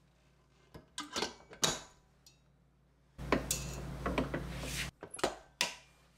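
A stainless-steel mixing bowl being fitted into a stand mixer's bowl holder: a series of short metallic clanks and knocks as the bowl is seated.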